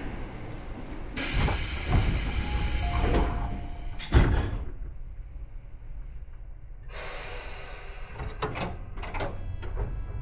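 Tobu 9000 series commuter train standing at a station: air hissing, then a loud thump about four seconds in as the sliding doors shut. Further hissing with several sharp clicks follows near the end.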